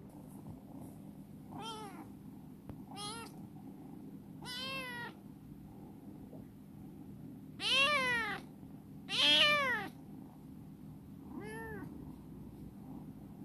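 Young black kitten meowing six times, each call rising and then falling in pitch; the fourth and fifth, about halfway through, are the loudest and longest. A faint steady low hum runs underneath.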